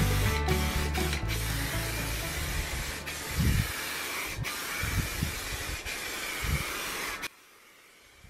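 Aerosol spray paint can hissing in a run of sprays broken by short pauses. Music plays under the first second or so. The hiss stops about a second before the end.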